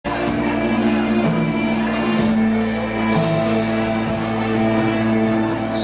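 Live band playing a song's instrumental opening: held chords with a light high tick about twice a second.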